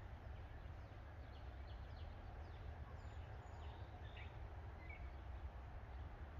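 Quiet outdoor ambience: faint bird chirps, short falling notes scattered through the middle, over a low steady rumble. No shot is fired.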